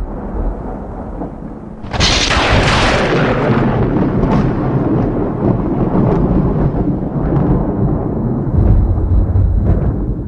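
Thunder sound effect: a loud crack about two seconds in, followed by a long rolling rumble that cuts off suddenly.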